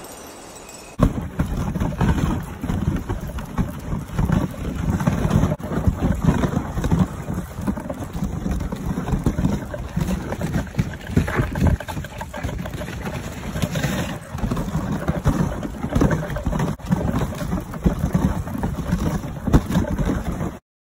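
A dog sled moving over snow: rough, rumbling noise of the runners with wind buffeting the microphone. It starts suddenly about a second in and cuts off abruptly near the end.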